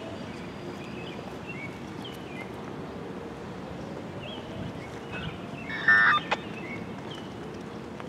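Outdoor background noise with scattered faint bird chirps, and underneath, very faintly, a distant Whelen siren's slow rising whoop. A brief louder pitched call with a click cuts in about six seconds in.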